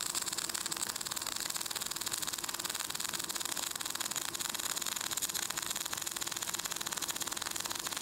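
MAG welding arc with the voltage turned far up: a steady hiss with a fast, fine crackle. This is the overly long arc of too much voltage, which sounds close to a spray arc even though the wire is burning back and penetration may be poor.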